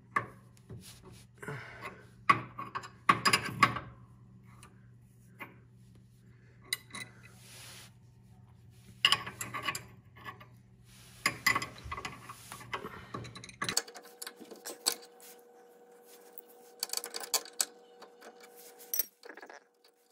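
Wrenches clinking on a steel hydraulic line fitting as it is broken free and unthreaded by hand: scattered light metallic clicks, clatters and rubbing.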